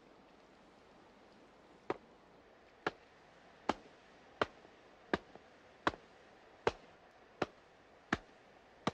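Wet laundry being beaten on a wooden washing board at a stream: about ten sharp, regular strikes, a little more than one a second, starting about two seconds in.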